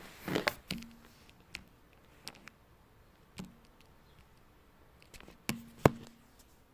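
Handling noise: a string of sharp, irregular taps and clicks, like fingers tapping a phone's touchscreen and the phone being handled. The loudest tap comes near the end.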